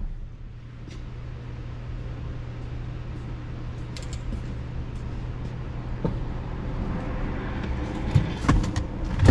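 A steady low hum with a few light clicks and knocks. The knocks grow busier near the end, as someone reaches into the back of the car and starts climbing in.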